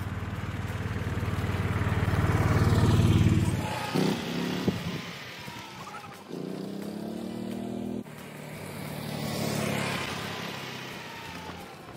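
Golf cart driving past close by, its engine drone swelling to a peak about three seconds in and breaking off abruptly. A second pass follows, loudest near the end.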